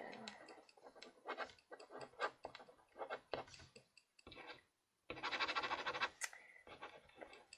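Faint scratching and rubbing with scattered clicks, broken a little past halfway by a moment of dead silence, then a burst of louder scratchy noise lasting over a second.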